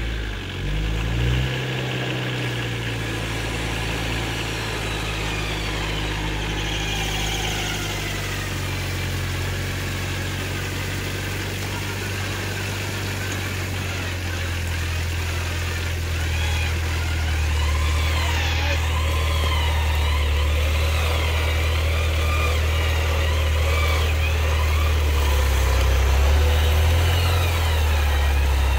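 Off-road 4x4 engine running with its revs rising and falling. From about halfway through, a whine rises and falls in pitch over the engine and the sound gets a little louder.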